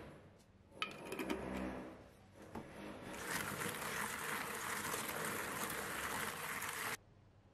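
Hands rolling and rubbing small green limes with coarse salt around a bowl: a dense scraping and rattling of fruit and salt grains against the bowl from about three seconds in, cutting off suddenly near the end. A few light knocks about a second in.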